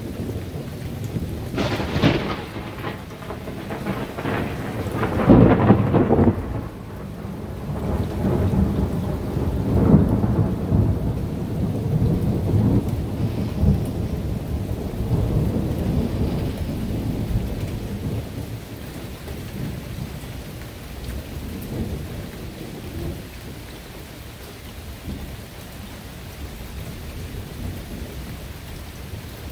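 Thunder after a close lightning flash: a sharp crack about two seconds in, then a louder clap about five seconds in, followed by a long rolling rumble that fades away over the next fifteen seconds or so. Steady rain runs underneath.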